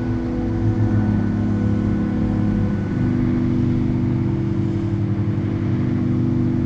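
Pipe organ holding low sustained chords, moving to a new chord about three seconds in, then stopping abruptly.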